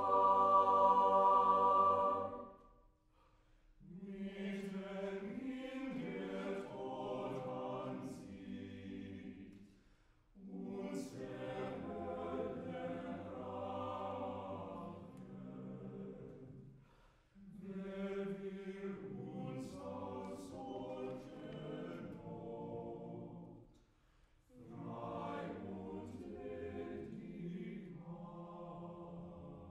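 Chamber choir singing: a loud held chord cuts off about two seconds in, then four phrases of about six seconds each, each followed by a brief pause.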